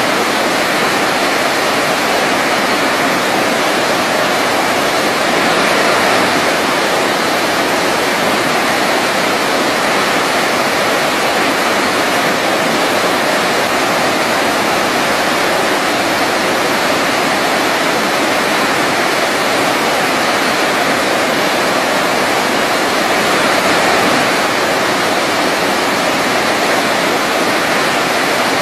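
Waterfall: the steady rush of falling water, an even hiss with no breaks.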